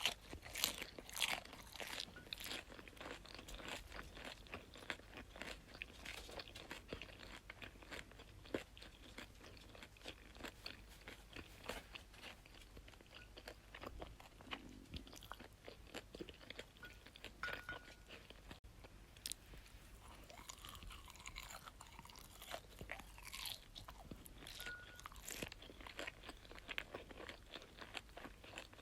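Close-miked crunching and crackling: many small crisp clicks in quick, irregular succession.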